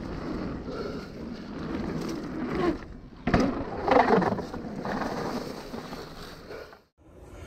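Mountain bike rolling along a leaf-covered dirt trail, a steady rumble of tyres and trail noise. A little over three seconds in, a sharp knock as the wheels hit a wooden plank boardwalk, then a louder clatter for about a second while rolling over the planks, fading before the sound cuts off near the end.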